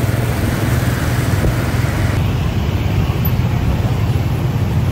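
Steady, loud din of motor-scooter traffic, mostly low rumble, heard from the pillion seat of a motorbike taxi riding among many scooters.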